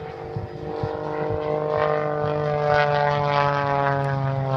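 Aerobatic airplane's engine droning steadily overhead, its pitch slowly falling as the plane passes.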